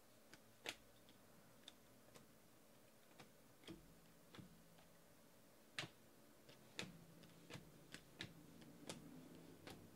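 Faint, irregular clicks and ticks of glossy Panini Select football cards being flipped through and slid off a stack in the hand, about fifteen over ten seconds, thickest in the second half.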